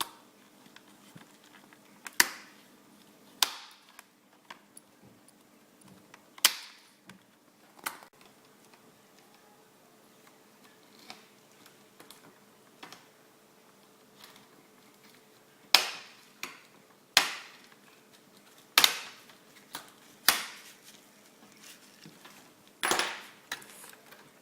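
Plastic clips of a Toshiba Satellite L650D laptop's screen bezel snapping loose one by one as it is pried off. There are sharp snaps at irregular gaps, about nine in all.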